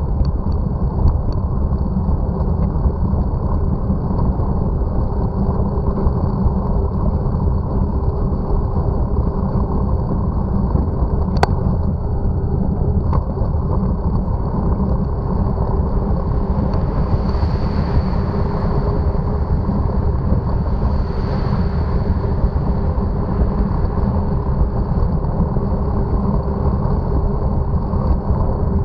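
Steady wind and road rumble on a bicycle-mounted camera's microphone while riding, with a thin constant high whine. A sharp click about eleven seconds in, and two cars passing one after the other in the second half.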